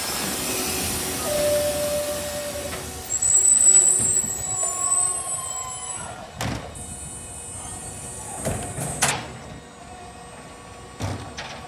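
Electric side-loader garbage truck moving off and working its bin-lifting arm. A steady tone and a hiss come in the first few seconds, then several sharp clunks and knocks as the arm grabs and tips a bin.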